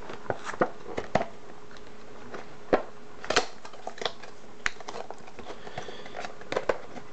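Cardboard packaging boxes handled and set down on a desk: scattered, irregular sharp taps and knocks over a faint steady hum.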